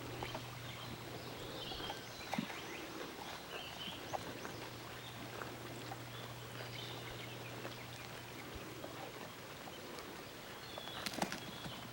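Quiet outdoor ambience: faint short bird chirps over a steady low hum, with scattered small clicks and a couple of sharper clicks near the end.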